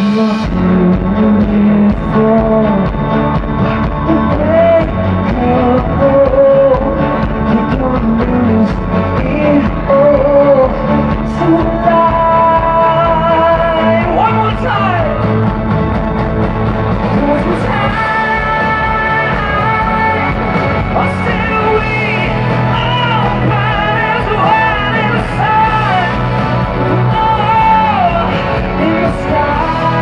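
A male singer singing live into a microphone over amplified music accompaniment.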